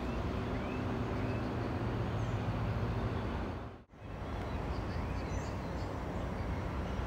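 Steady low hum and rumble of an electric commuter train at a station platform, with faint bird chirps. The sound drops out sharply a little past halfway, then the rumble resumes.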